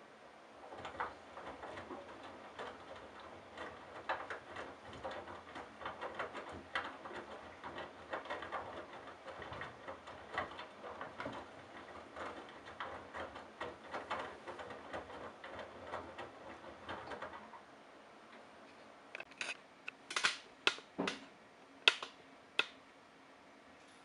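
Candy GrandO Simply-Fi front-loading washing machine's drum turning during its wash, wet laundry tumbling and splashing with many small knocks, for about seventeen seconds before the drum stops. A few seconds later come several sharp, loud clicks.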